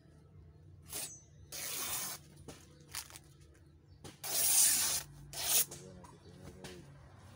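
White cloth being ripped apart in several tears: short rips about a second in and near the end, longer ones around two seconds and just after four seconds, the last of these the loudest and longest.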